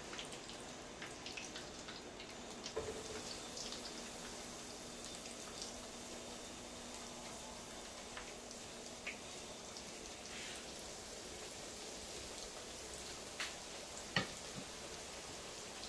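Floured chicken wings frying in a skillet of hot oil: a steady sizzle with scattered crackles and a few sharper pops, the loudest about fourteen seconds in.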